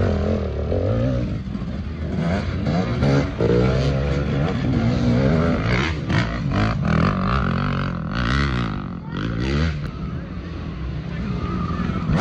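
Several motorbike engines running and revving at once, their pitch rising and falling over and over.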